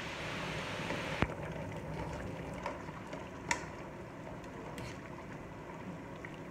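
Pot of water boiling on a gas stove with a steady bubbling, as dry spaghetti is pushed in and stirred with a plastic spoon; two sharp clicks, about a second in and again about three and a half seconds in.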